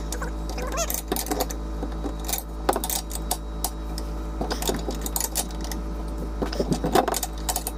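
Scattered metallic clinks and clicks of a socket wrench and tools working a 21 mm suspension bolt on the lower control arm, over a steady low hum.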